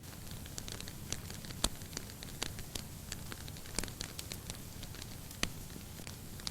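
Wood fire burning in a fireplace: irregular sharp crackles and pops, the loudest about one and a half and four seconds in, over a low steady rumble of the flames.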